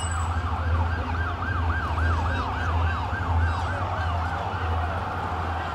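Emergency vehicle siren on a fast rising-and-falling yelp, fading out after about four seconds, over a steady low rumble.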